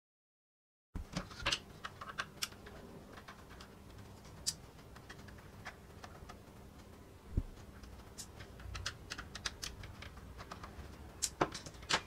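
Small screwdriver working screws out of the back of a plastic air conditioner remote control: scattered light clicks and ticks of metal on plastic, starting after about a second of dead silence and coming thicker near the end as the casing is handled.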